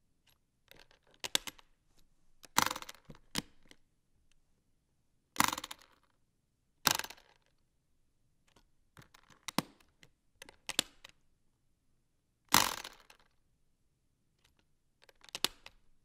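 Briefcase being handled, its latches and lock snapping and the case knocking: a series of sharp clicks and short knocks, some in quick pairs or clusters, with quiet gaps between.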